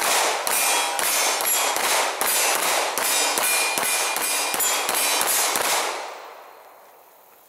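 Handgun fire from several shooters at once: a rapid, overlapping volley of shots for about six seconds, some with a brief ringing tone, then the sound dies away.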